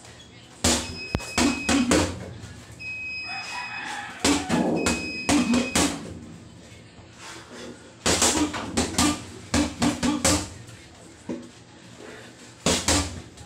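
Boxing gloves hitting a hanging heavy bag in quick combinations of several punches, with short pauses between the combinations. A rooster crows in the background about three seconds in.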